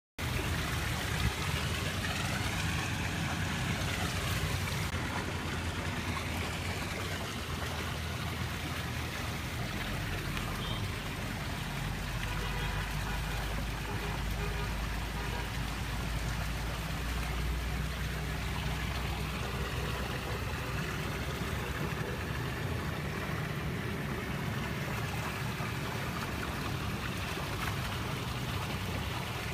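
Steady sound of running water with a low rumble underneath.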